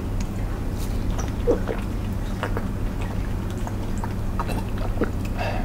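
A plastic water bottle's cap twisted off with a few small clicks, then gulps and swallows of water drunk from the bottle, over a steady low hum.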